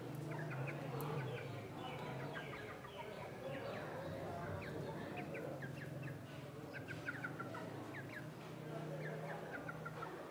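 White chickens clucking in low, continuous murmurs, with quick runs of short high chirps throughout.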